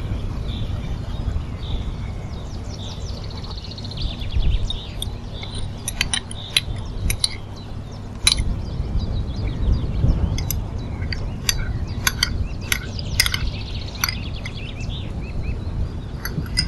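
Chicken and green peppers sizzling and crackling in a nonstick frying pan over a steady low hum. In the middle, a run of sharp clinks from a metal spoon tapping a small glass bowl and the pan as sauces are scraped in.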